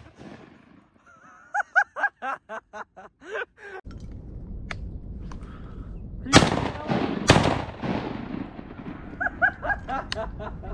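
A run of about eight quacks, then two shotgun blasts about a second apart, each trailing off in a long echo. A few more quacks follow near the end.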